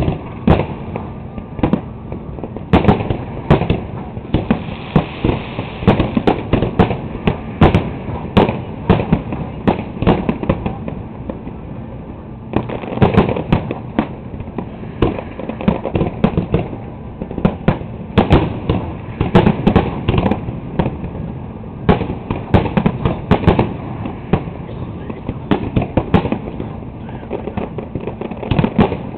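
Fireworks display: aerial shells going off in rapid bangs, with dense clusters of reports about three, thirteen, nineteen and twenty-three seconds in.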